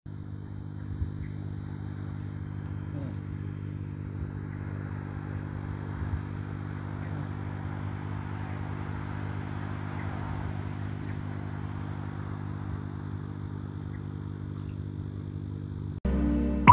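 Air pump humming steadily, with air bubbling through Artemia (brine shrimp) hatching bottles. Near the end it cuts off suddenly and loud electronic music begins.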